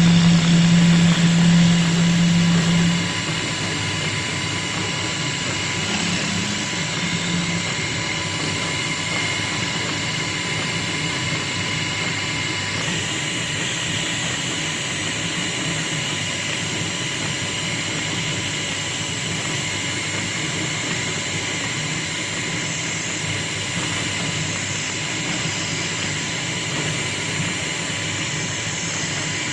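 Wood-turning lathe running while a hand-held chisel cuts a spinning wooden disc: a steady whir with the hiss and scrape of the cut. It is louder, with a low hum, for about the first three seconds, then settles to an even level.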